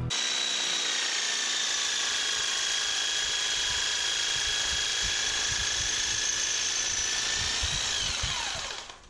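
Corded angle grinder with a flap wheel running at a steady high whine while grinding into the metal of an ATV's lower A-arm. Near the end it is switched off and its pitch falls as it spins down.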